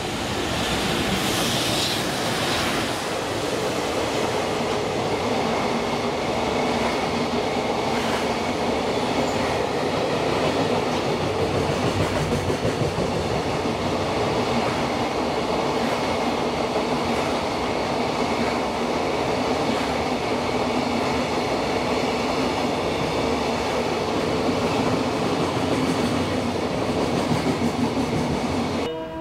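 EF210-300 electric locomotive and its container freight train passing at speed. The noise swells over the first second as the locomotive arrives, then holds steady with wheel-on-rail noise as the long line of container wagons runs by.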